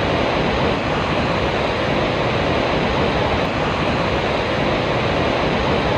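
Vøringsfossen waterfall: a steady, unbroken rush of falling water.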